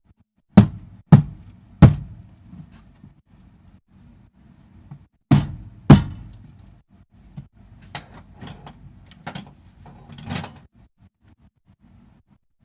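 Hard knocks and thunks, three quick ones near the start and two more about five seconds in, followed by lighter clicks and rustling, as of things being handled and knocked against a hard surface while unpacking.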